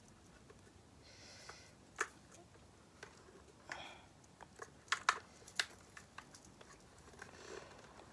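Scattered light clicks and small rattles of a Xenith X2E+ football helmet's hardware being handled and adjusted, with a few sharper clicks clustered about halfway through.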